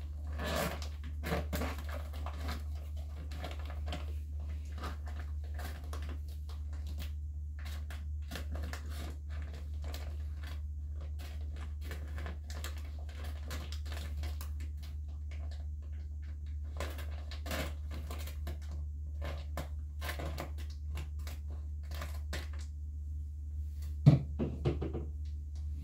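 Heavy-duty titanium-coated scissors snipping through a plastic mushroom grow bag, irregular cuts with the plastic crinkling, under a steady low hum. Near the end a sharp thud and a couple of smaller knocks.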